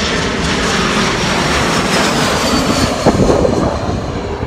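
Jet airliner passing overhead: a loud, steady engine roar with a faint high whine that falls slowly in pitch.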